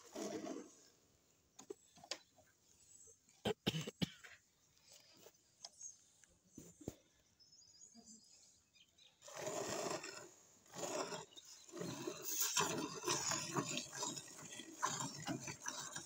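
Hand-milking a buffalo: jets of milk squirt from the teats into a steel bucket of frothy milk in rapid, hissing spurts, picking up strongly about nine seconds in. A few sharp knocks come a little before that, around the fourth second.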